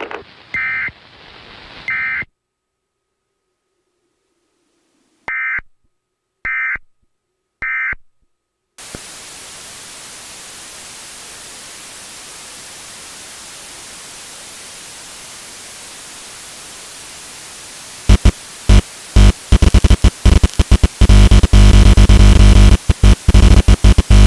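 Short screeching bursts of Emergency Alert System data tones, first a pair and then three more about a second apart, the end-of-message code after the test message. From about nine seconds in, a steady static hiss follows. From about eighteen seconds it is broken by loud, harsh, stuttering distorted noise that cuts in and out rapidly.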